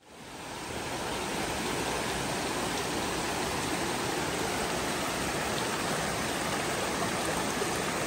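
Natural hot-spring river rushing and splashing over rocks in shallow rapids: a steady rushing noise that fades in over the first second.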